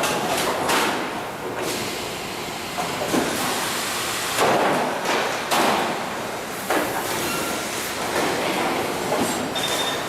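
Sheet-metal forming machinery for washing-machine outer cabinets running. Bursts of noise come and go every second or so, with sudden clunks.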